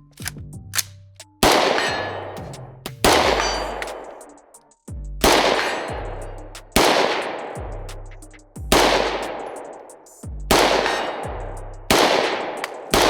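IWI Zion-15 AR-15 rifle fired in slow, aimed single shots, about eight in all, one every one and a half to two seconds, each with a long ringing, echoing tail as rounds strike steel targets.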